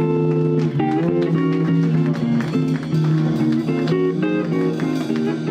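Live band music led by guitar, played as plucked chords over a steady low double-bass line.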